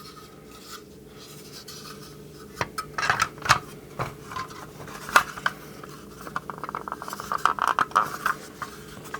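Hard plastic toy parts clicking, knocking and scraping against each other as they are handled and pressed together, with scattered sharp clicks in the middle and denser rubbing and clicking near the end.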